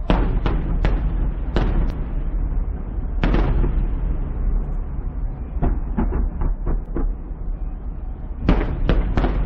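Aerial firework shells bursting in sharp bangs, several in quick succession at the start, one a little later, a rapid run of about six in the middle, and another cluster near the end, over a steady low rumble.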